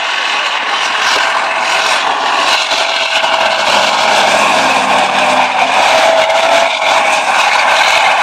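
T-55 tank's V12 diesel engine running hard as the tank drives across soft ground, with its steel tracks clattering. The sound builds up in the first second or so, then holds steady, with a steady whine running through it.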